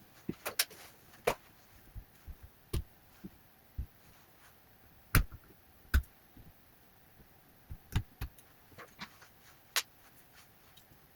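Irregular clicks, taps and knocks of small hard parts and tools being handled during laptop fan replacement, about twenty in all, with the loudest knocks about five and six seconds in.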